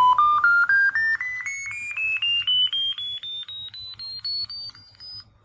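A frequency-sweep test signal from a small speaker: short electronic beep tones stepping up in pitch about five times a second, from a mid whistle to a high one, stopping shortly before the end. It is the raw sweep, before any filtering.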